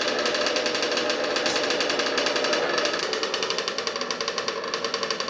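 Motor of a small RC pulling truck running with a loud, rapid, rattling buzz of fast even pulses, the model held in place by hand at the sled.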